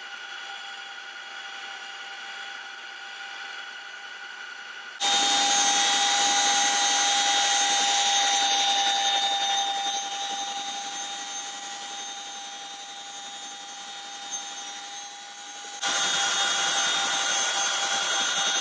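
CH-47 Chinook helicopter heard from inside the cabin: steady turbine and transmission whine with several fixed tones over a rushing hiss. It gets suddenly louder about five seconds in, eases off partway through, and jumps up again near the end.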